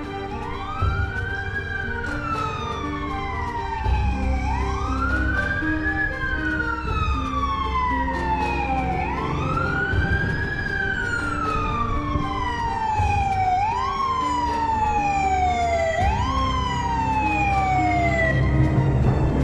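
Fire engine siren sounding a wail: each sweep rises quickly and falls slowly, about every four and a half seconds, then shorter and quicker sweeps about every two and a half seconds in the last third. Background music plays underneath.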